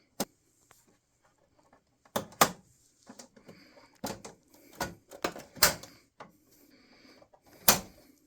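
Sharp clicks and knocks, a dozen or so irregular taps, as the air filter is fitted back into a GE dehumidifier's housing.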